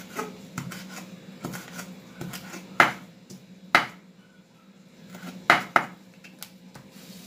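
Kitchen knife chopping cilantro on a wooden cutting board: irregular knocks of the blade against the board, with three or four louder strikes around three, four and five and a half seconds in.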